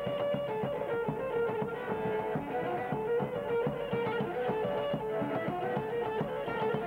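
Live folk band music: a melody instrument plays a busy, running tune over regular beats of a large daouli bass drum.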